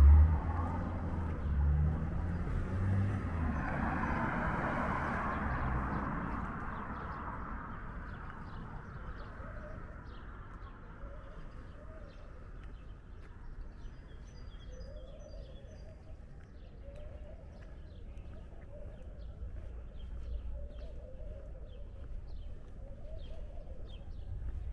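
A vehicle rumbles past in the first few seconds and fades. Then quieter outdoor ambience with birds chirping and calling in short repeated notes.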